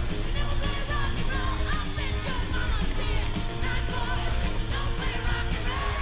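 Rock music with singing over a heavy, steady bass.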